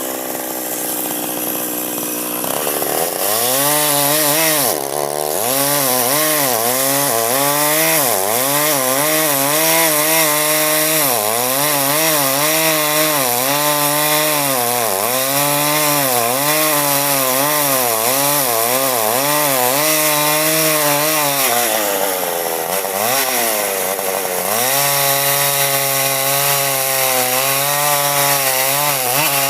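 Petrol chainsaw cutting walnut wood: the engine revs up about three seconds in, then its pitch repeatedly sags and recovers as the chain bites under load. It drops toward idle once near the end and revs back up.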